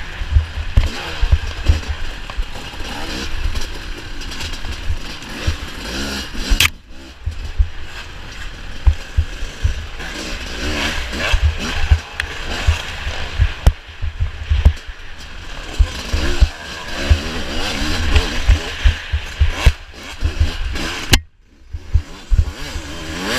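Off-road motorcycle engine revving up and down as the bike is ridden hard, with heavy wind buffeting on the microphone. The engine briefly goes quiet near the end.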